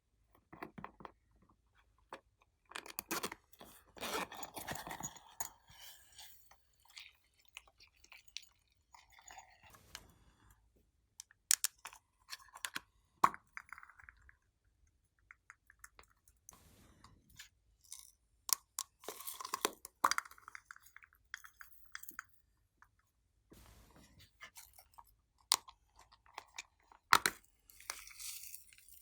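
Glossy slime being mixed and squeezed, making irregular sticky clicks, pops and short crackling bursts.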